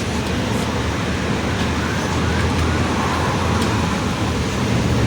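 Mercedes-Benz OF-1721 Bluetec 5 city bus driving: a steady diesel and drivetrain rumble with a faint whine that glides up and down in pitch in the middle, which the title puts down to a growling differential.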